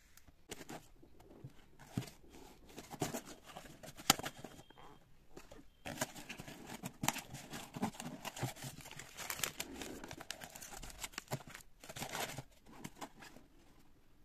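A cardboard shipping box being opened by hand: irregular rustling, crinkling and tearing of cardboard and crumpled packing paper as a product box is dug out. A single sharp snap about four seconds in is the loudest sound; the rustling dies down near the end.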